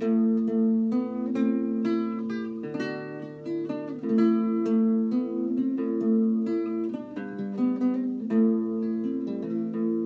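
Solo acoustic guitar playing a folk-style improvisation, single notes plucked and left to ring over one another.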